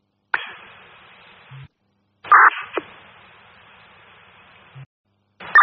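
Scanner radio with transmissions keyed but no voice: hiss that cuts to dead silence and comes back three times, each stretch ending in a short low squelch burst. A sharp click marks the first key-up, and a brief loud burst a little over two seconds in is followed by a click.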